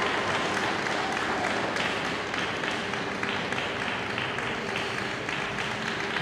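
Audience applauding in an ice rink.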